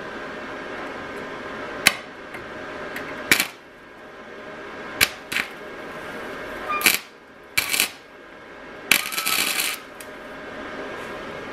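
Electric welder striking short weld bursts, about seven crackling bursts of under a second each with the longest near the end, as the Z-bar support bracket is welded to the car's underbody. A steady hum runs beneath.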